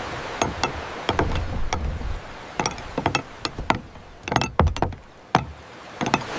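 Hammering: an irregular run of about twenty sharp knocks and taps with short pauses, the loudest about four and a half seconds in.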